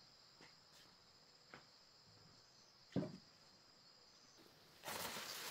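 Steady high insect drone from crickets, with a few faint knocks and one sharper thud about three seconds in. Near the end a louder burst of rustling noise starts.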